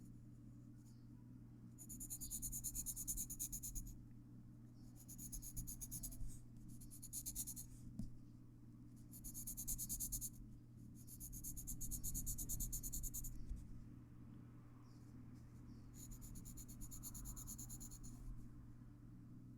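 Graphite pencil scratching across paper in rapid back-and-forth shading strokes, in several runs of one to two seconds with short pauses between, over a steady low hum.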